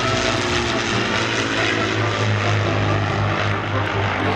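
Avro Lancaster bomber's four Rolls-Royce Merlin V12 piston engines and propellers running steadily in a flypast, a loud, even, low hum.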